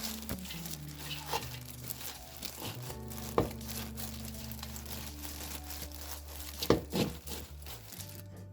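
Food sizzling and crackling in a frying pan as it is stirred, with a few sharper knocks of the utensil against the pan, about a third of the way in and twice near the end. Soft background music runs underneath.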